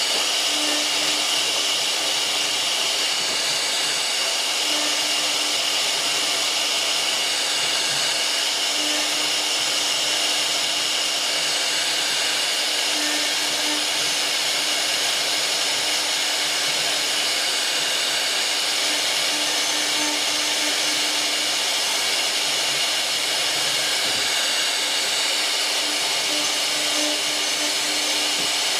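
CNC router spindle running steadily: an even high whine over a constant hiss, with no pauses.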